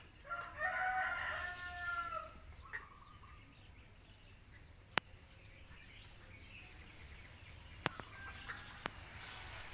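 A rooster crowing once, a pitched call of about two seconds near the start. Small birds chirp faintly throughout, and a few sharp clicks come later.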